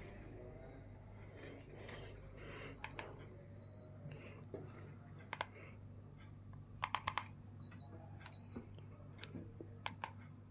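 Gree split air conditioner running with a steady low hum and giving three short, high beeps, the beep a split unit makes on taking a remote-control command. Scattered light clicks and taps come in between.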